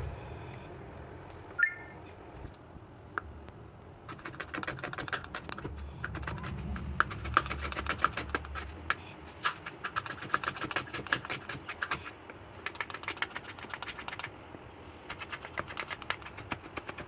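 Kitchen knife chopping onion, then garlic, on a plastic cutting board: quick, irregular taps of the blade hitting the board, several a second, starting a few seconds in with brief pauses between bouts.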